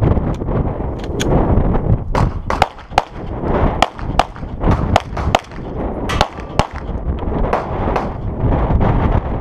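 Handgun fired in rapid pairs and short strings, about twenty sharp shots in all, as a competitor works through a stage of targets. A steady low rumble runs underneath.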